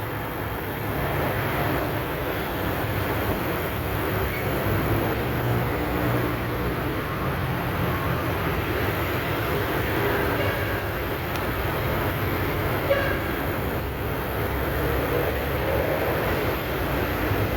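Steady low mechanical rumble with a noisy hiss above it, running without a break.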